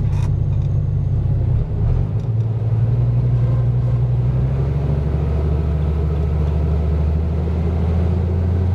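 Ford 7840 tractor engine running, heard from inside the cab, with the PTO driving a Teagle bale chopper. The low hum dips briefly a little under two seconds in, then settles to a lower steady pitch after about five seconds.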